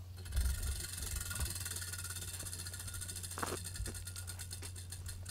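Spinning prize wheel, its pointer flapper clicking against the pegs round the rim: rapid ticks that slow down as the wheel coasts.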